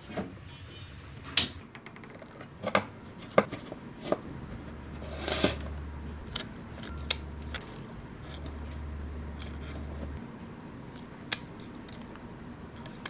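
Scattered sharp clicks and light knocks of small hard parts being handled. A low steady hum comes and goes from about four seconds in to about ten seconds in.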